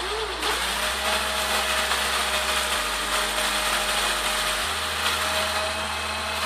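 Cordless drill running steadily with a sandpaper sleeve spinning on its chuck, a steel knife blade pressed against the abrasive to sharpen it: a steady motor whine under a hissing grind.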